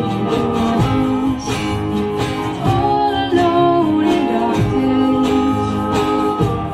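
A band playing a pop-rock song, strummed guitar prominent, with singing.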